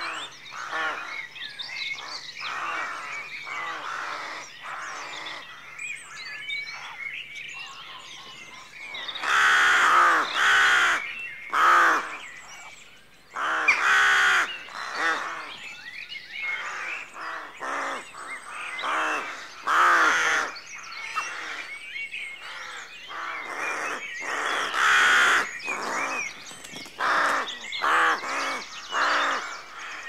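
A colony of rooks cawing, many harsh calls overlapping, rising to louder bouts of cawing several times, with smaller birds chirping underneath.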